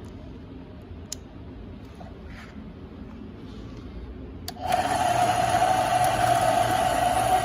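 Hitachi CB12FA portable band saw switched on: a click about four and a half seconds in, then the motor and blade start and run steadily with a high whine.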